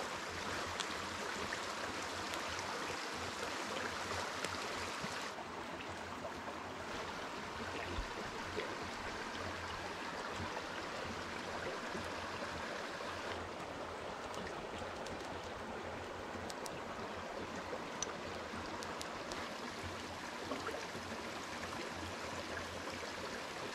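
A small mountain creek running over rocks: a steady rush of water, with a few faint ticks on top. The sound thins a little about five seconds in and fills out again at about thirteen seconds.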